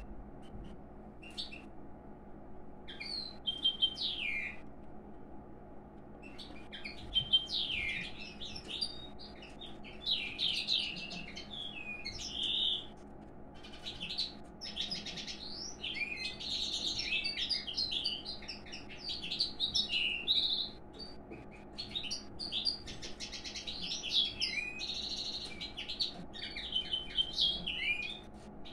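Pine grosbeak singing a rambling twittering warble of quick slurred notes and trills, in phrases that grow nearly continuous after the first few seconds. This is the courtship song of a male to a female.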